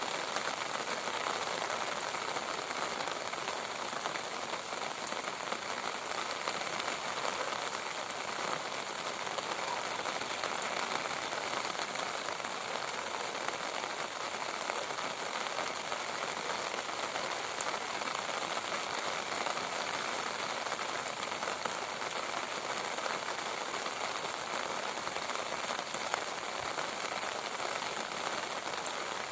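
Steady rain falling and pattering on a surface, an even hiss of many drops that holds at the same intensity throughout.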